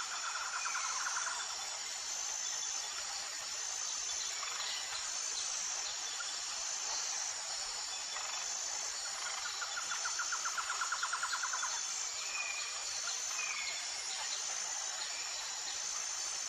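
Outdoor nature ambience: high-pitched insect chirring in even, regular pulses, with a rapid trill near the start and again about ten seconds in, and a few short chirps.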